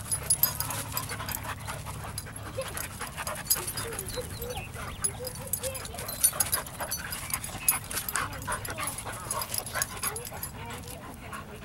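Two dogs wrestling in play, panting and giving short whines, over a scatter of scuffling clicks from paws on gravel.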